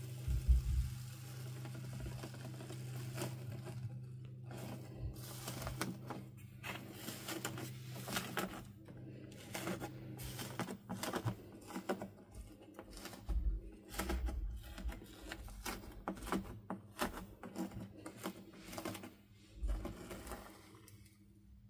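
Dried crust on a bowl of fluffy slime cracking and crunching under a pressing hand, then crumbling as fingers break it up: many small crackles, the sharpest about half a second in.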